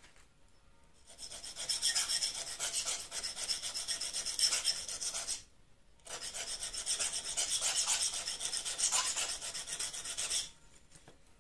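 Point of a small pair of scissors being sharpened by hand on an abrasive sharpening stick: quick, short scraping strokes of steel on the abrasive, in two runs of about four seconds each with a brief pause between.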